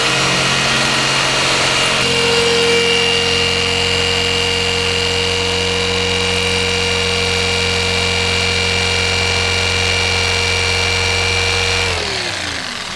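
Corded Skil jigsaw running at steady speed as its blade cuts a straight line through a sheet of HDPE plastic, a constant motor whine with the blade's buzz. About a second before the end, the trigger is released and the motor winds down with a falling whine.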